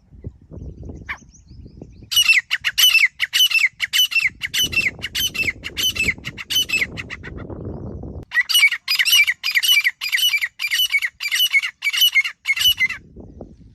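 Grey francolin calling: a long series of loud, harsh, evenly repeated notes, each sweeping downward, about two a second, in two runs with a short break about two-thirds of the way through. A low rumbling noise sits under the first run and comes in before and after the calls.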